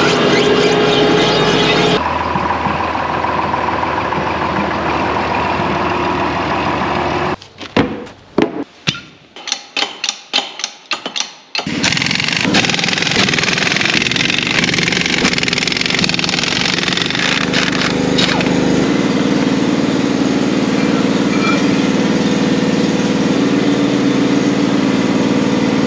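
Air impact wrench working a tractor's front wheel nuts: a few seconds of short, sharp rattling bursts with pauses between them about a third of the way in, set among longer stretches of steady, loud mechanical noise.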